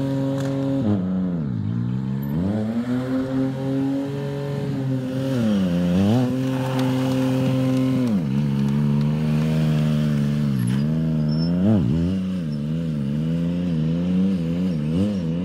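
Yamaha MT-09's three-cylinder engine held at steady high revs while the bike is ridden on its back wheel. Several times the revs drop sharply and climb back. Near the end they waver quickly up and down with small throttle blips as the rider balances the wheelie.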